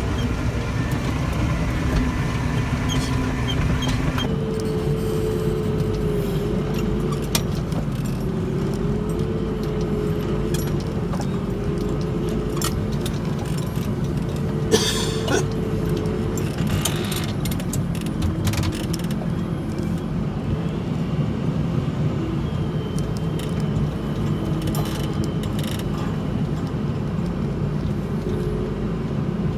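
Tractor engine running steadily under load while pulling a set of discs, with a wavering whine through most of it and scattered light clicks and rattles.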